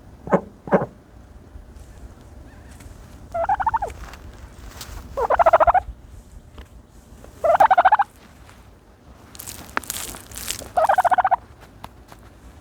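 Turkey dust-bathing and giving four short, rapidly pulsed rattling calls a couple of seconds apart. Two sharp clicks come at the start, and a brief rustling hiss comes just before the last call.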